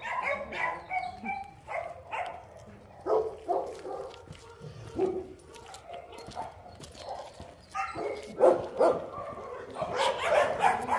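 Dogs barking on and off, the loudest barks about eight seconds in and again near the end.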